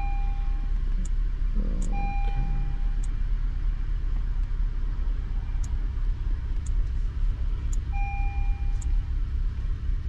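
2012 Honda Civic Natural Gas 1.8-litre four-cylinder engine idling with a misfire on cylinder 3 (code P0303), a steady low rumble heard from inside the cabin. Three short beeps sound over it, about two seconds in and again near the end.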